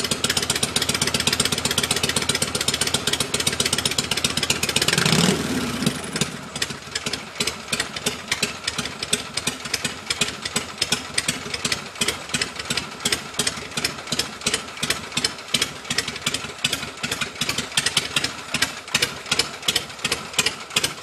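Magneto-fired Harley-Davidson Shovelhead V-twin running at a fast idle. About five seconds in it swells briefly and then drops to a slow, loping idle with strong, even beats about three times a second.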